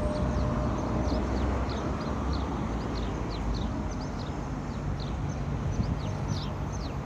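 A tram running along the line, a steady low rumble that slowly fades. Birds chirp over it in many short falling notes, about three a second.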